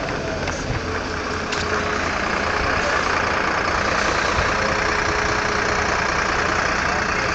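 A vehicle engine idling steadily, under a rushing noise that grows louder about two seconds in.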